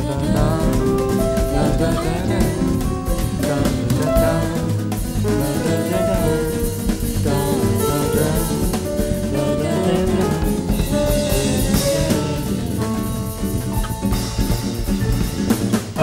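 A recorded pop song playing: a drum kit keeps the beat under several pitched instruments changing notes.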